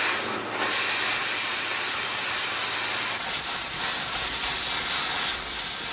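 Propane-oxygen cutting torch hissing steadily as it cuts through steel. The hiss starts suddenly, and its highest part drops off about three seconds in.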